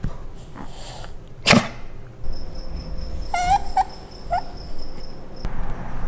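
Italian greyhound whining in a few short, high, wavering cries about halfway through. A sudden sharp noise, the loudest sound here, comes about a second and a half in.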